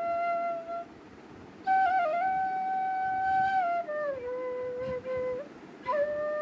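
Background music: a flute-like melody of slow, long held notes that step down in pitch, with short pauses between phrases.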